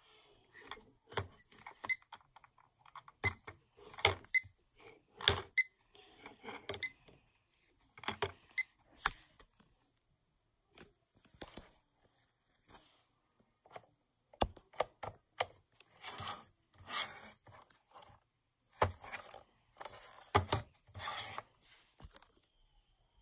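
Irregular clicks, knocks and light rattles of small plastic clocks being handled on a wooden bedside table, a few of them sharper bumps with a short high ring.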